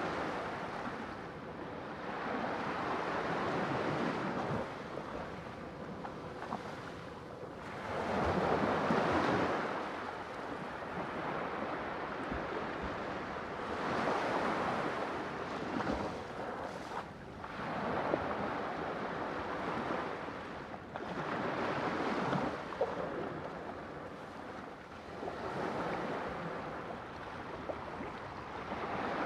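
Sea waves surging in and out, a noisy wash that swells and fades every few seconds.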